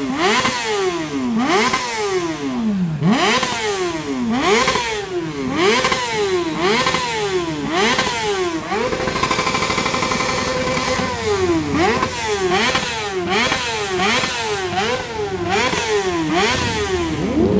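Motorcycle engine revved hard over and over while standing still, about three blips every two seconds. About halfway through it is held at high revs for a couple of seconds, then the blipping resumes.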